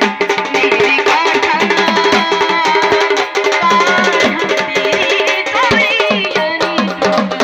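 Marathi gavlan folk music: a hand drum plays a fast, steady rhythm, with deep strokes that slide down in pitch, under a wavering melodic line.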